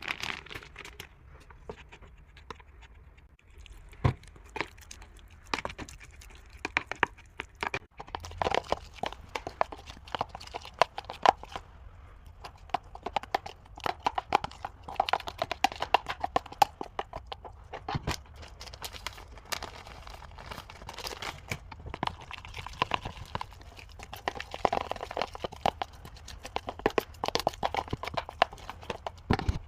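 Kitchen utensils clicking and knocking quickly and irregularly, some hits ringing briefly.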